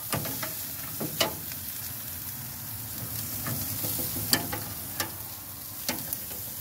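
Thick pork chops sizzling on a hot grill grate as they are turned with metal tongs, with sharp metal clicks from the tongs about seven times.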